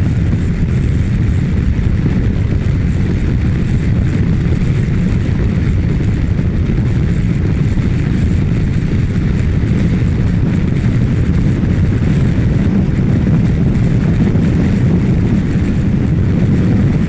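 Kawasaki Ninja 1000SX running steadily at about 120 km/h on the expressway. Strong wind rushes over the rider's microphone along with the drone of the engine and road.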